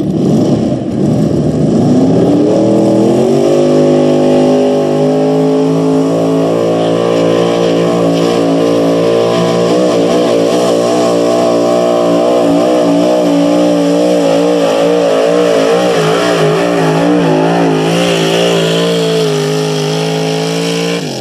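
Modified gas pickup truck's engine at full throttle pulling a weighted sled: the revs climb over the first few seconds, then hold high and steady, with the pitch wavering for a few seconds past the middle, and fall as the throttle is lifted at the very end.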